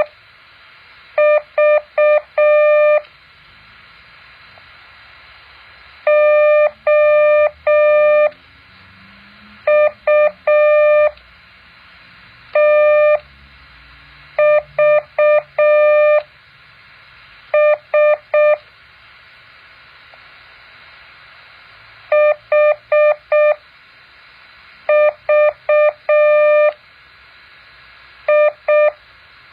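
Morse code practice tone: one steady, clean beep keyed on and off in short dots and longer dashes. Each character is sent as a quick group, with a pause of one to three seconds before the next, slow-spaced for learning to copy by ear.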